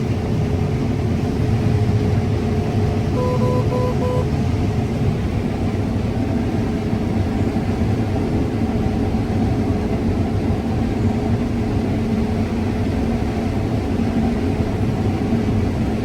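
Combine harvester running while cutting corn, heard from inside the cab: a steady drone of engine and threshing with a constant hum. Three short electronic beeps sound about three seconds in.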